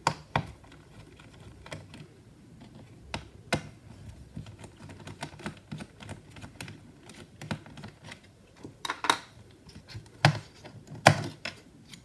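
Irregular sharp clicks and taps of small screws, a plastic hard-drive retaining bracket and a screwdriver being handled in an open laptop's bottom case, as the 2.5-inch hard drive is freed and lifted out. Soft handling rustle between the clicks.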